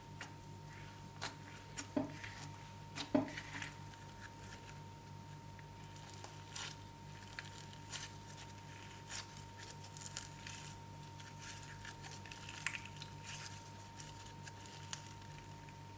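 Slime being squished and worked by hand: scattered soft sticky crackles and clicks, a few louder pops about two to three seconds in. A steady low hum with a faint high tone runs underneath.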